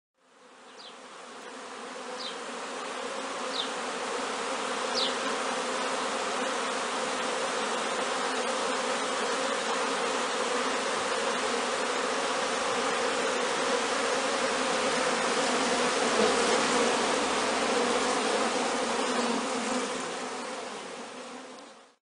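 Many honeybees buzzing in flight around beehive entrances, a dense steady hum, typical of young bees making their orientation flight. The hum fades in over the first few seconds and out near the end. Four short high chirps come in the first five seconds.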